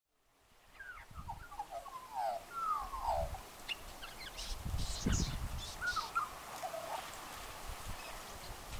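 Australian magpie singing: a run of warbling, gliding notes starting about a second in, thinning out to a few softer notes later on. Low rumbling gusts of wind on the microphone underneath.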